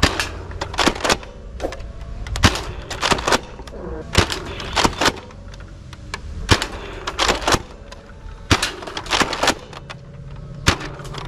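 Gunshots fired one or two at a time at irregular intervals, well over a dozen sharp cracks in all.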